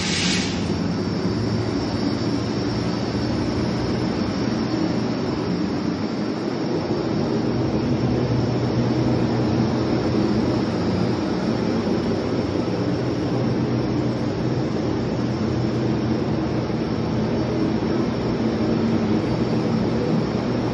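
P3-12kW machine running steadily under power, a continuous mechanical noise with a low hum and a thin high whine. A brief hiss sounds right at the start.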